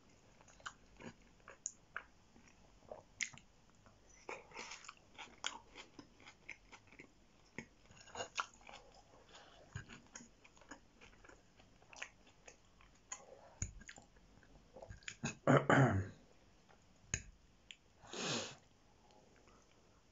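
Chewing and mouth sounds of someone eating chicken massaman curry with fries: many short wet clicks and smacks throughout, with a few louder noises, the loudest about three-quarters of the way through.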